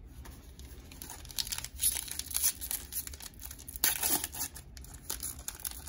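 Foil wrapper of a Panini Prestige football card pack crinkling and tearing as it is ripped open by hand, in irregular crackles.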